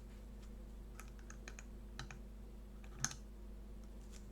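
Faint, scattered small clicks and taps of metal repair tools working against the internals of an opened iPhone 8 while a stuck part is pried at, over a steady low hum.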